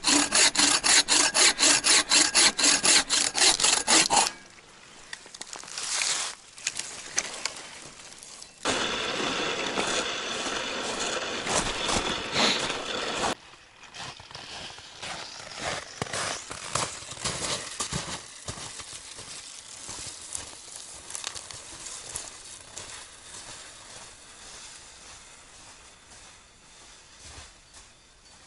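Bow saw cutting through a dry tree branch with fast, even strokes that stop about four seconds in. Quieter scattered crackles follow, with a steadier noisy stretch in the middle.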